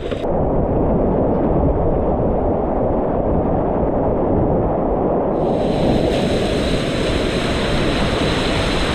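Rushing river water, dull and low at first, then suddenly brighter and hissier about five seconds in.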